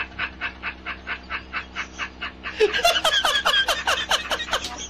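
A man laughing hard in fast, even bursts of about five a second. About halfway through, the laugh jumps higher in pitch into a cackle, then drops back near the end.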